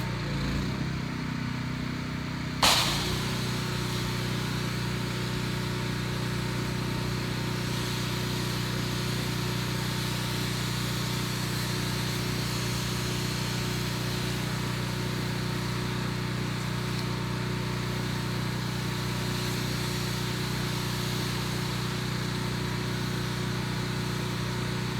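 Gas-engine pressure washer running steadily, with a sharp click about two and a half seconds in and a steady hiss after it.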